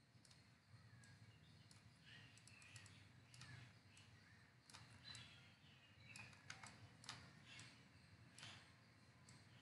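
Faint, irregular computer mouse clicks as curve points are selected and dragged, over a low steady room hum.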